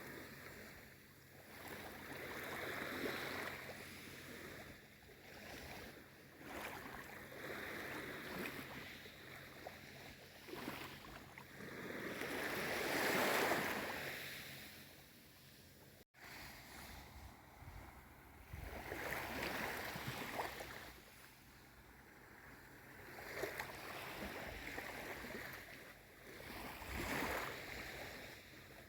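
Small sea waves on a calm sea lapping and washing in, each swell rising and fading over a few seconds, the largest about halfway through. The sound cuts out for an instant just after the middle.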